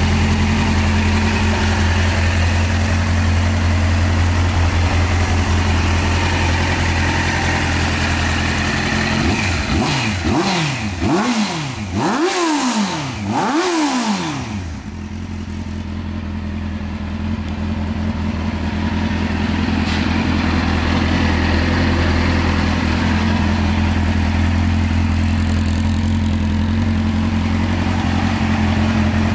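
Triumph Daytona 600 inline-four engine idling steadily through an aftermarket carbon-fibre silencer. About ten seconds in, it is revved about four times in quick succession, each rev rising and falling, then settles back to idle.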